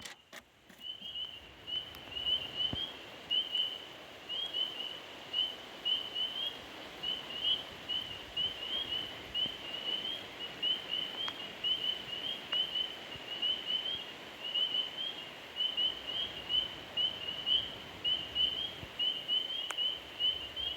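Short high chirps repeating steadily, about three a second, over a faint even hiss of open air.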